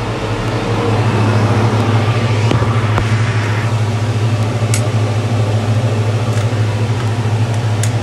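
Skate sharpening machine running steadily with a low, even hum while a steel runner is worked on it, with a few light clicks.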